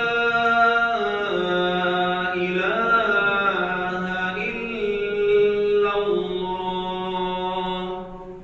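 A man chanting the Islamic call to prayer into a microphone: one long melodic phrase of held notes that step and slide in pitch, ending near the end.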